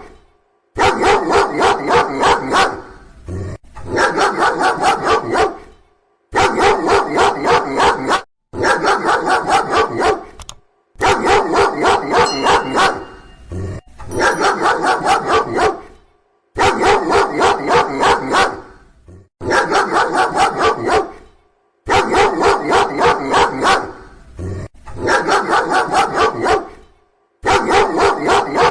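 A dog barking loudly in rapid volleys of about four or five barks a second. Each volley lasts two to three seconds and ends in short, abrupt silences.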